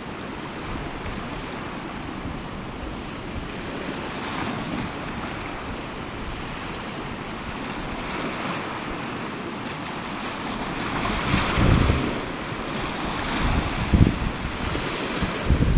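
Sea waves breaking and washing on a pebble shore, swelling louder a few times, with wind gusting on the microphone near the end.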